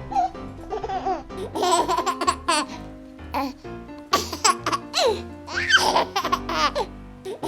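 A baby laughing and giggling in a string of short bursts over background music.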